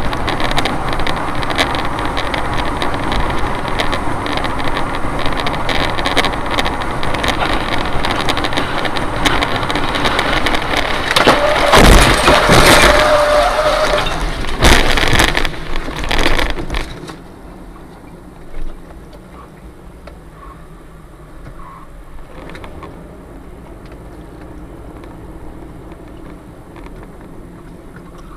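Loud, steady road and vehicle noise, at its loudest with a brief steady tone about twelve seconds in. About seventeen seconds in it drops suddenly to a low hum.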